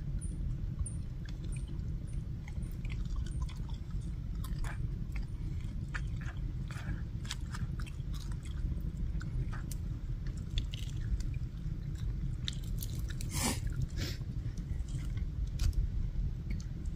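A person chewing food close to the microphone: short crisp crunching clicks, scattered and irregular, over a steady low rumble.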